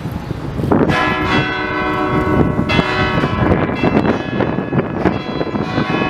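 Church bells begin ringing about a second in, several bells pealing together with fresh strikes every second or two.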